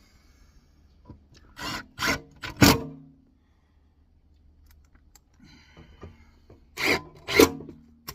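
Screws being driven through the flange of a wall-penetration cover with a power driver, in short rasping bursts: four close together a couple of seconds in, then two more near the end.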